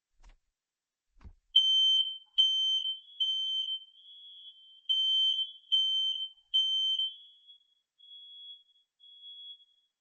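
Smoke detector sounding on test: a low click, then two sets of three loud, high, steady beeps with a pause between them, the temporal-three evacuation pattern. A fainter beep at a slightly higher pitch sounds alongside and keeps going after the loud beeps stop.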